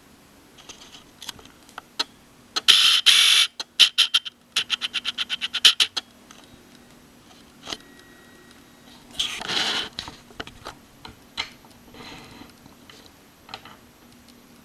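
A quick run of evenly spaced clicks, about eight a second, between two short bursts of rustling noise, with scattered single clicks.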